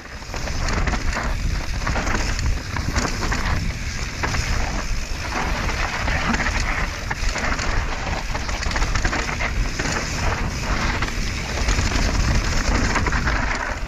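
Mountain bike descending dry dirt singletrack at speed: a steady rush of tyres over loose dirt and leaves, with the bike clattering and rattling over bumps, and wind rumbling on the camera's microphone.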